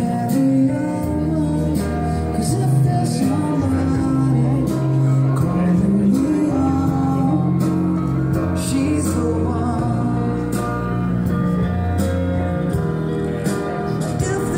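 Music with singing over a line of held bass notes.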